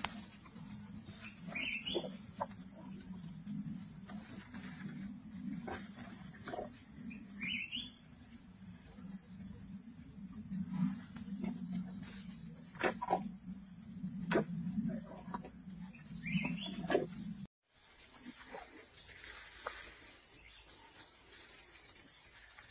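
Steady high-pitched drone of jungle insects, with an Asian elephant feeding close by: twigs and leafy branches crackling and snapping over a low rustling rumble. Three short rising chirps cut through, and the feeding noise stops suddenly about two-thirds of the way in, leaving the insects fainter.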